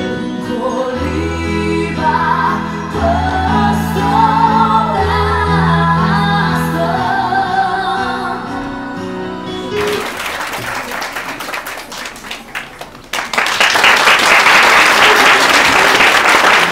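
A song with singing over a steady bass line plays for about ten seconds and ends. Scattered clapping follows, and about three seconds later it swells into loud, sustained audience applause.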